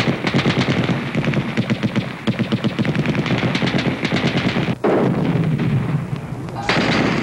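Rapid automatic gunfire, many shots a second in dense volleys, with a brief lull nearly five seconds in.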